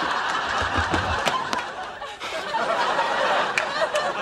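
Sitcom studio audience laughing, a dense, steady wash of many voices.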